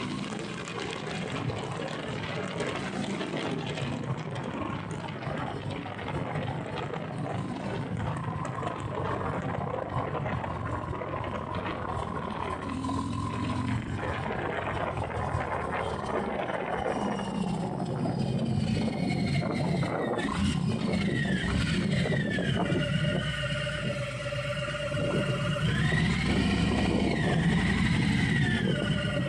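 Harley-Davidson Sport Glide's Milwaukee-Eight V-twin running on the move, under heavy wind rush on the microphone. The wind noise thins out about halfway through, leaving the engine's low note plainer, with some higher tones rising and falling near the end.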